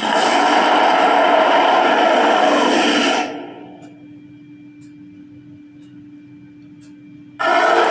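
Fire dragon sound effect: a loud, rushing burst lasting about three seconds, then a low steady drone, with a second burst starting near the end.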